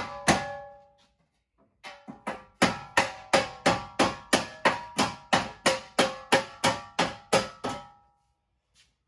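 Hammer blows on a pickup's steel front cross member, about three strikes a second, each ringing with a metallic tone. The cross member is being beaten over to bend it out of the way for engine removal.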